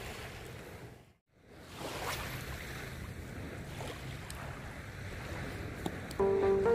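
Small waves washing on a sandy beach, with wind on the microphone; the sound drops out briefly about a second in. Background music comes in near the end.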